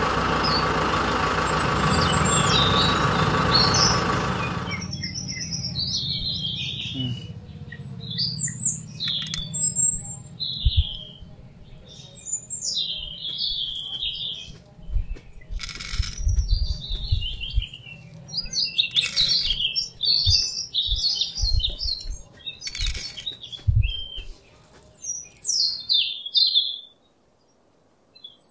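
Small birds chirping again and again in short, high calls, with scattered low thuds. A loud steady drone fills the first five seconds and then stops abruptly.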